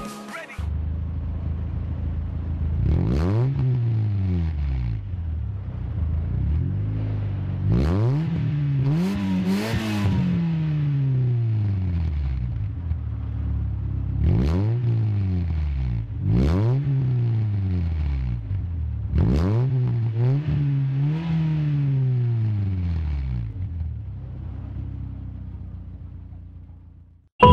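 A Fiat Siena 1.6's four-cylinder petrol engine idling, heard right at the exhaust tailpipe. It is blipped again and again, each rev rising sharply and sliding back down to idle. The engine settles at idle and fades out near the end.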